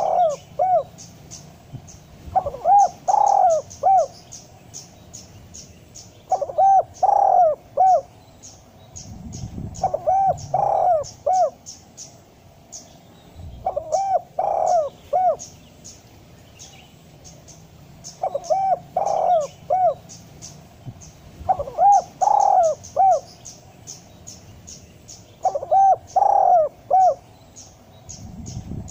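Spotted dove cooing: a phrase of three or four low, arched coos, repeated about every four seconds. A fast, faint high ticking runs underneath.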